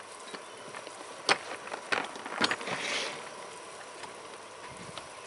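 Sharp handling clicks, three within about a second, followed by a short rustle and a couple of faint ticks, as the just-cleared AR-15 and shooting gear are handled.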